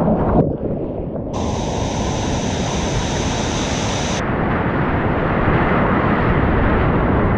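Whitewater rapids rushing, with water splashing over the kayak's camera microphone. The sound changes abruptly three times: about half a second in, at just over a second, and around four seconds in.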